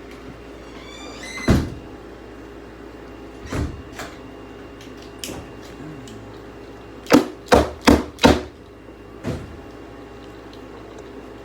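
Hard objects knocking and clunking while being handled: scattered sharp knocks, with four quick ones in a row about seven seconds in, over a steady low hum.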